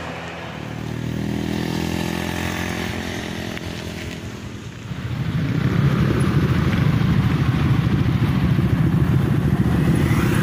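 Motorcycle and scooter engines passing on a road. One engine rises in pitch as it goes by, and about halfway through a louder, rougher engine sound takes over as a scooter rides past close by.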